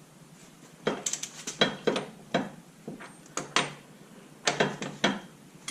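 Torque wrench ratcheting in short, uneven strokes on an axle nut: a dozen or so sharp metallic clicks and clanks as the nut is drawn up toward about 180 ft-lb.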